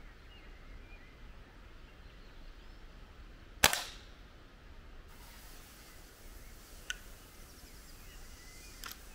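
A single shot from an Artemis SR1250W .22 spring-piston air rifle, a sharp crack with a short tail, a little over a third of the way in. Two faint clicks follow later as the barrel is broken open to cock the spring for the next pellet.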